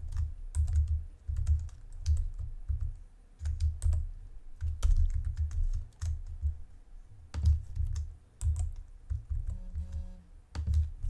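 Computer keyboard typing: irregular keystrokes and clicks, each with a dull low thud, as text is copied, pasted and edited.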